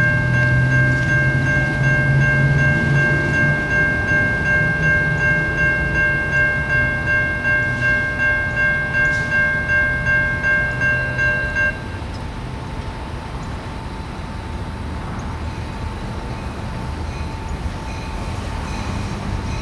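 Railroad crossing bell ringing at about two strokes a second while the crossing gates are lowered, cutting off suddenly about twelve seconds in. After that, the even rumble of the approaching CSX ballast train slowly grows, with no horn sounded.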